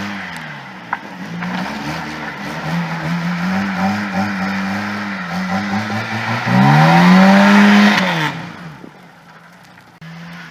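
Oldsmobile car engine revving with the wheels spinning on snow. The pitch climbs sharply about six and a half seconds in, the loudest part, holds, then drops away and dies down just after eight seconds.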